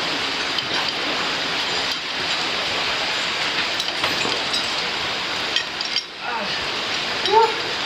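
Steady rush of running water in a rocky stream gully, with light metallic clinks of climbing gear and a brief voice near the end.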